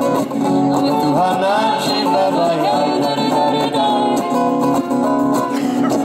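Music: a song with plucked guitar, with a wavering melody line over it in the middle.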